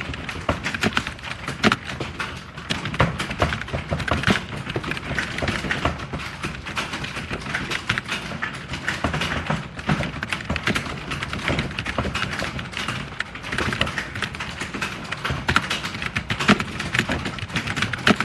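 Fast typing on a computer keyboard: a dense, irregular run of key clicks with no break.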